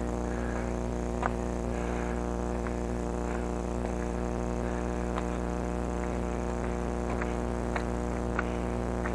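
A steady low hum, made of several even tones held at one level, with a few faint clicks scattered through it.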